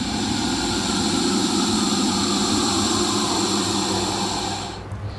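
Mosasaurus sound effect: one long, rushing, hoarse roar that cuts off suddenly near the end.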